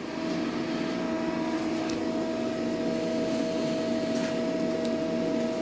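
Steady hum of idling workshop machinery, holding several even tones without change. A few faint light clicks come through as digital calipers are handled.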